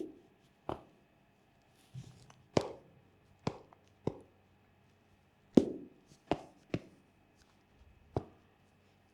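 High-heeled round-toe lolita shoes clacking as the wearer walks, picked up by a microphone clipped to the shoe: about ten sharp heel strikes at an uneven pace, with a pause of over a second near the middle.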